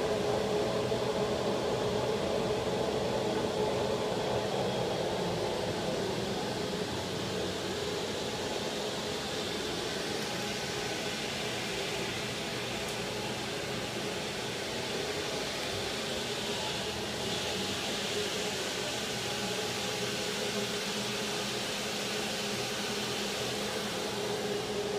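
Steady machine drone: a constant hum with a hiss over it, as from a running vacuum blower or air-handling unit.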